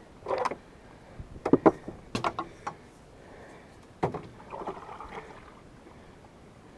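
A metal-shafted paddle being handled and used in a jon boat: several sharp knocks and clunks against the boat, with a short swish of water about four seconds in.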